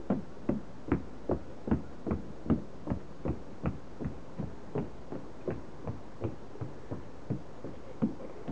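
A toddler's sneakered footsteps stomping on a wet wooden deck: a steady run of short thumps, about two to three a second.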